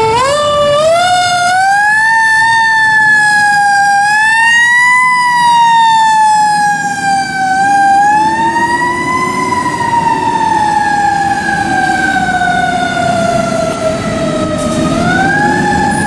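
Siren of a 2018 E-One Typhoon fire engine responding to a call. It winds up in steps at first, then wails with slow, uneven rises and falls in pitch, sinking gradually and climbing again near the end. The truck's engine runs underneath.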